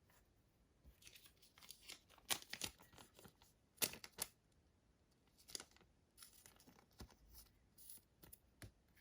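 Faint handling noise of trading cards: short rustles and clicks as cards are slid and shuffled against each other, the loudest a little over two seconds in and about four seconds in.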